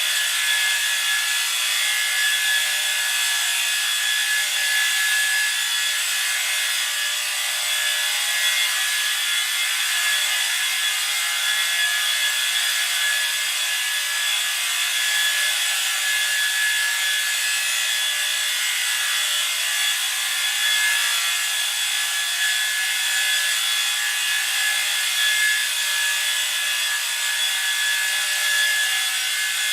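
Designed sci-fi electric-field sound effect: a harsh, steady, high buzz with a few held tones over a rasping hiss, unbroken throughout.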